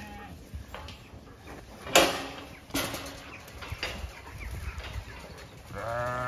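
Zwartbles sheep jostling at a galvanised metal field gate as it is opened. The gate clanks loudly about two seconds in, with a lesser clank soon after and smaller knocks. Near the end one sheep gives a long bleat.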